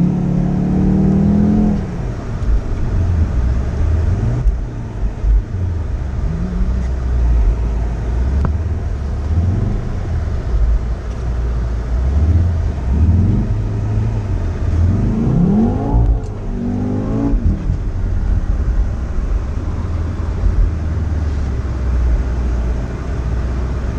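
Volkswagen Golf R's turbocharged four-cylinder engine and road noise heard from inside the cabin while being driven on snow, the revs rising and falling, with a sharp climb in revs about fifteen seconds in.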